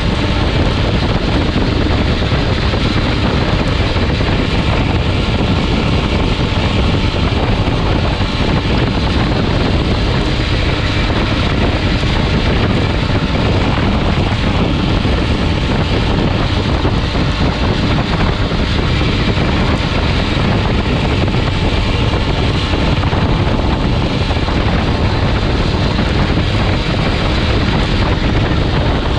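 Steady drone of a derny pacing motorbike's engine running just ahead of a racing bicycle, mixed with heavy wind rushing over the camera microphone at racing speed.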